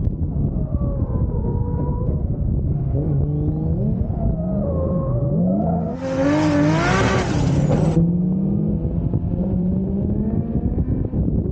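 Nissan 200SX S14 drift car's engine, heard from on board, revving hard with its pitch repeatedly climbing and dropping as the throttle is worked. A loud hiss starts abruptly about six seconds in and cuts off about two seconds later.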